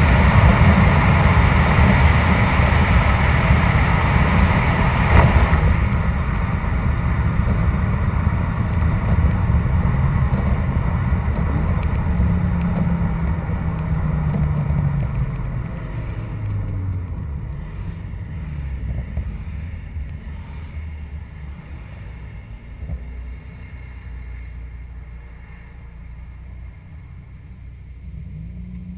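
Car engines and exhaust running at speed in a road tunnel, with heavy road and wind noise. About five seconds in the cars leave the tunnel and the sound turns duller and quieter. The cars then slow down, with a few brief rises and falls in engine pitch, and the sound dies down toward idle.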